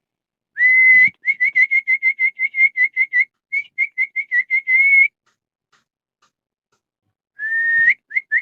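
Dog whistle blown in a long, slightly rising blast, then a quick run of short toots, about six a second, ending in another long blast. After a silent pause of about two seconds, another long rising blast comes near the end, followed by short toots.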